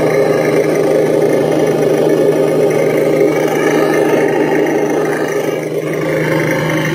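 Steady engine-idle sound with a constant low hum, played by the tuned Traxxas Summit RC truck's engine-sound unit.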